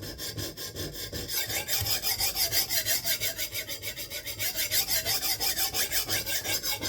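A coarse 140-grit sharpening stone on a guided KME sharpener rasping back and forth along the edge of a 52100-steel bunka kitchen knife, in quick, even strokes of about five or six a second: the first grinding pass on a dull edge, raising a burr.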